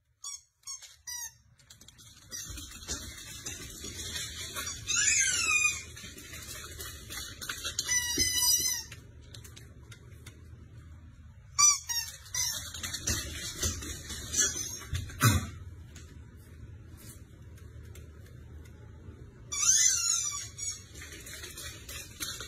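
Birds calling in several bouts of rapid, high chirps, with quieter gaps between them, over a low rumble. There is one sharp thump about two-thirds of the way through.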